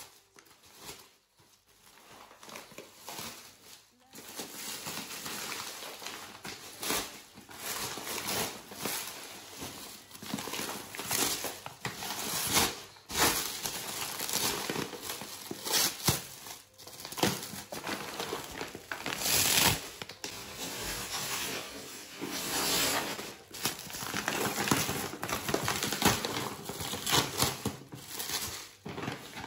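Clear plastic wrap crinkling and rustling as hands pull it off a large paper sack of dry dog food, in irregular bursts that start a few seconds in.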